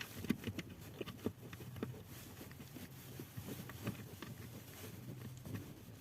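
Faint, irregular clicks and taps of a hand tool undoing a small trim bolt in a car footwell, thickest in the first two seconds.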